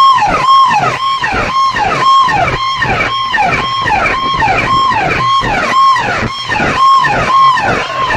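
Stacked horn loudspeakers of a DJ sound rig blasting loud electronic music. A short high note drops away in a falling sweep, repeated about twice a second over a low beat.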